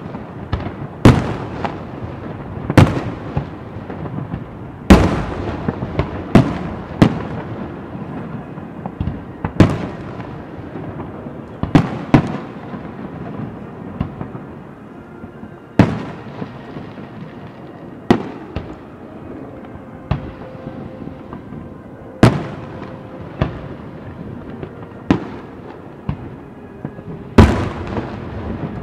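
Aerial firework shells bursting in a show, with about fifteen sharp booms at irregular intervals, mostly a second or two apart with a few longer gaps, over a continuous rumble from the display.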